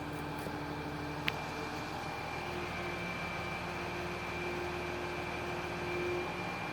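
Large mobile crane's diesel engine running steadily, with a constant high whine over the low hum and a single sharp click about a second in.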